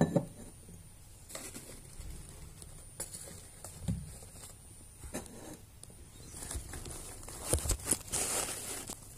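Handling noise from objects being moved and rearranged close to the microphone: a sharp knock at the start, then scattered taps, bumps and rustling, busiest near the end.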